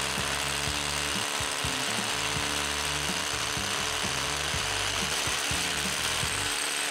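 Bosch cordless hammer drill with a dust-extraction attachment running at full speed, drilling a hole in one steady, unbroken run.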